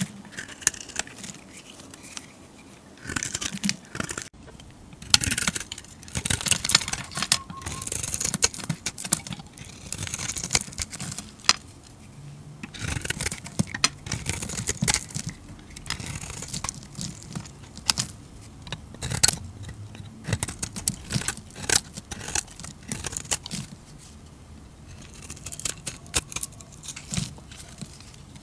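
A thin utility-knife blade shaving and scraping dry bars of soap, with crisp strokes in irregular runs and flakes crackling as they curl off. There are brief pauses between runs.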